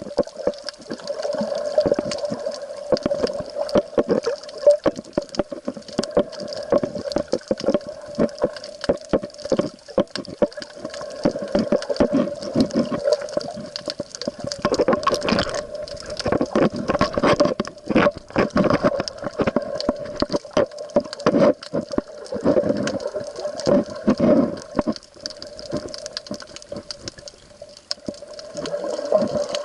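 Water sloshing and gurgling around the camera, with many small clicks and knocks and a steady hum underneath.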